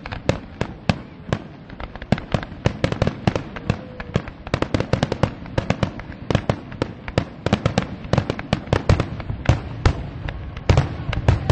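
Aerial fireworks shells bursting in quick succession: many sharp bangs and crackles a second, growing denser and louder near the end.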